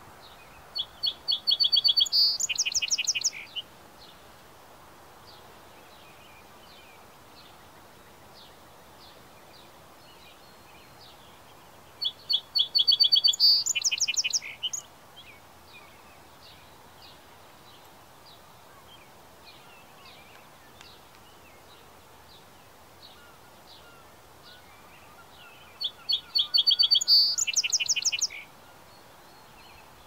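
A songbird nearby sings the same short song three times, about every 13 seconds. Each song is a quick run of repeated high notes followed by a louder, higher rattling flourish. Fainter chirps from other birds come in between.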